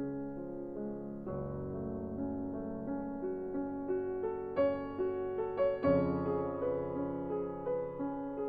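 Background piano music: a slow melody of single notes over held low chords.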